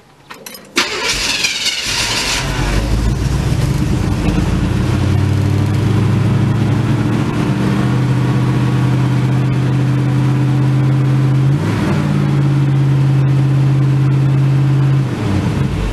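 Classic pickup's engine being started: a brief crank catches about a second in, revs up at first, then settles into a steady run. It drops in level near the end.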